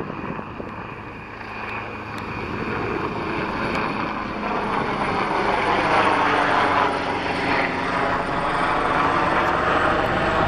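Los Angeles City Fire helicopter approaching and passing low overhead, its rotor and turbine noise swelling to its loudest about six seconds in and staying loud to the end.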